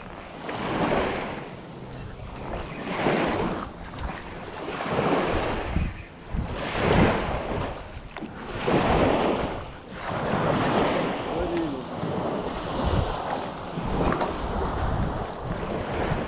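Waves washing with wind buffeting the microphone, the rushing noise swelling and fading about every two seconds.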